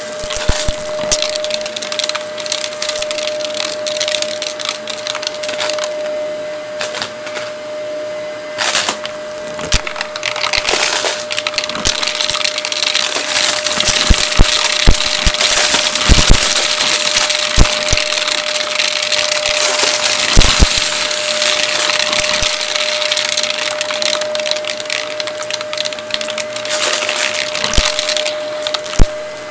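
Red Shark upright vacuum cleaner running on carpet with a steady motor whine. Scattered bits of debris clatter and crackle as they are sucked up, most thickly in the middle stretch.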